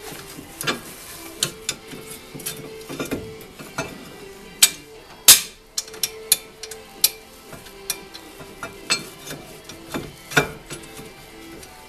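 Hand tools working on car brake parts: irregular sharp metal clicks and knocks, with one loud knock about five seconds in.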